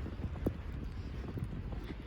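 Storm wind buffeting the microphone in a steady low rumble, with scattered soft knocks and one sharper click about half a second in.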